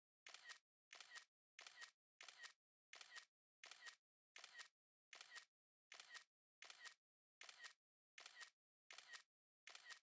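iPhone camera shutter sound effect repeated about every 0.7 seconds. Each is a quick two-part click with complete silence between shots.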